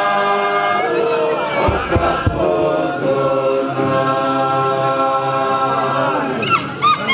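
A group of voices singing a Futunan dance song unaccompanied, in long held notes, which breaks off about six seconds in and gives way to a few short high cries.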